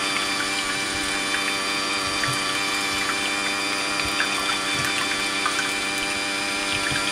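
Electrolux Ultramix Pro ESTM 6400 hand mixer running steadily, its motor whirring at an even pitch while twin wire whisks beat a thin mix of egg and milk in a ceramic bowl, with small splashes and occasional light clicks of the whisks against the bowl.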